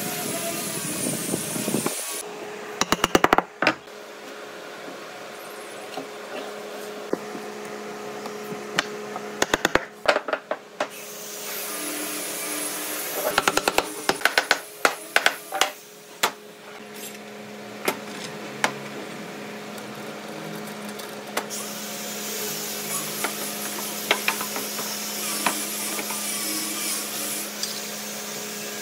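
Bursts of quick, sharp knocks on wood as pieces of a glued pine frame are tapped into place: a rapid run of taps about three seconds in, more around ten seconds and again at fourteen to sixteen seconds, then scattered single knocks, over a steady hum.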